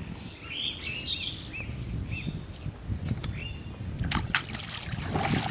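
Small birds chirping in short, arched calls over a steady low outdoor rumble. About four seconds in, a few sharp brief noises cut in.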